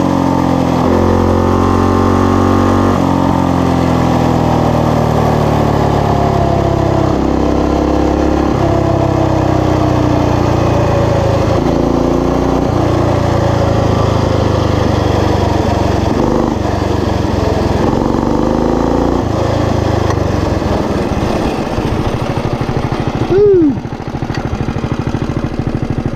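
Coleman BT200X mini bike's single-cylinder 196cc four-stroke engine running under load, its pitch stepping and gliding up and down as the throttle is worked, then settling lower about three-quarters through as the bike slows. A short loud sound that rises and falls in pitch comes a few seconds before the end.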